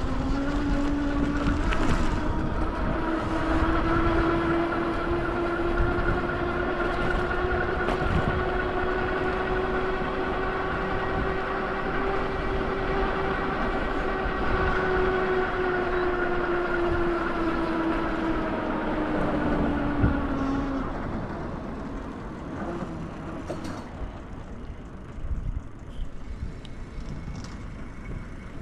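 A large vehicle passing close by: a steady droning hum over heavy rumble that rises slightly at first, holds, and falls away about 21 s in, leaving lighter street noise.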